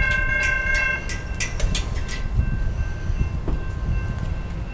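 A grade-crossing signal bell rings as the crossing gates lower, and a train horn sounds a steady chord that ends about a second in. The bell strikes stop about two seconds in, leaving a low rumble.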